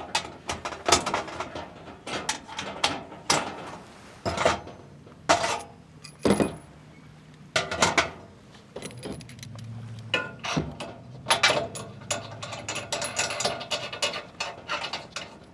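Clicks, clanks and knocks of a two-burner propane camp stove being set up: the lid and side panels unfolded, the metal regulator tube fitted and the metal grate handled on a plastic folding table.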